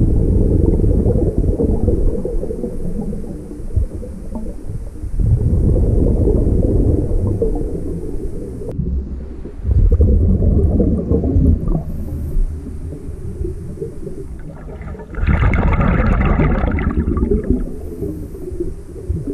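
Scuba breathing heard underwater: regulator exhaust bubbles rumble in bursts of two to four seconds, about every five seconds, with a louder, hissier burst near the end.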